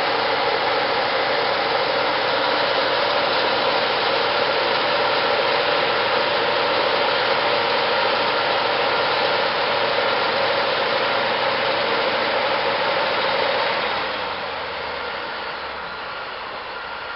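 Caterpillar 777 haul truck's diesel engine running hard as it drags another haul truck on a 20-tonne tow strap: a loud, steady drone with a whine in it. About fourteen seconds in, the engine eases and the sound drops clearly quieter.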